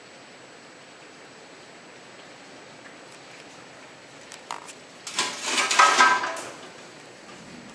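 Steady hiss of heavy rain falling on a backyard. About four and a half seconds in there are a couple of sharp knocks, then a loud clatter lasting about a second and a half.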